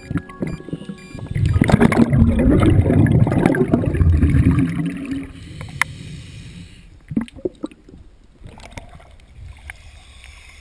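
Scuba diver exhaling through a regulator, a burst of exhaust bubbles burbling past the underwater camera for about four seconds, then quieter underwater hiss with a few sharp clicks.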